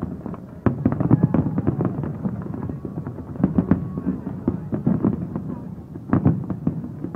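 Aerial fireworks display: shells bursting in a rapid, irregular string of sharp bangs that overlap one another, with the loudest about a second in, around three and a half seconds, and at about six seconds.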